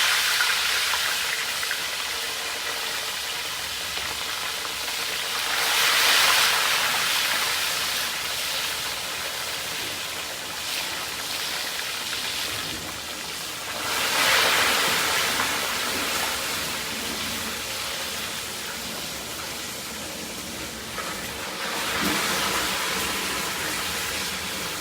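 Fish frying in hot oil, a steady sizzle that swells louder three times, about eight seconds apart.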